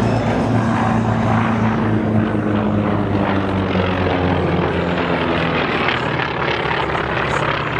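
A propeller aircraft droning overhead: a steady low engine hum whose pitch drifts slightly lower partway through.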